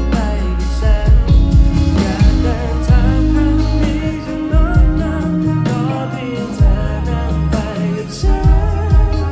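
Live pop song amplified through a concert sound system: a man singing into a microphone over a band with heavy bass and a drum beat.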